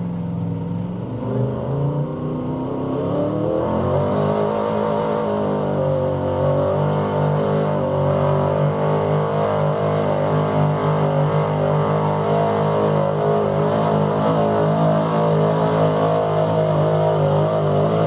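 Ford F-series pickup truck's engine at full throttle, pulling a heavy weight-transfer sled. The revs climb over the first few seconds, then hold steady under load.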